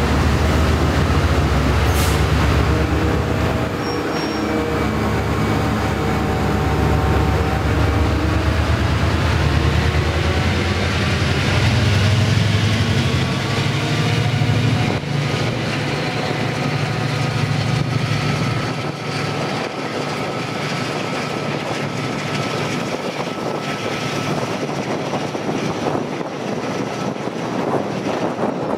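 DRS Class 68 diesel locomotive's Caterpillar V16 engine working hard as it pulls the train away, its note rising for several seconds and then easing back about fifteen seconds in. Heard from the first coach behind it.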